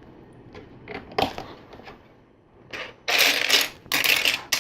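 Loose plastic LEGO pieces clicking and clattering as a hand rummages through a pile of them: a few light clicks, then two rattling bursts in the second half.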